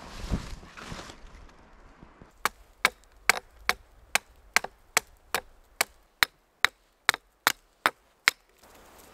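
Small hatchet chopping a point onto the end of a thin pine stick to make a wooden stake: a run of about fifteen sharp, evenly spaced strokes, roughly two and a half a second, that starts a couple of seconds in and stops abruptly near the end.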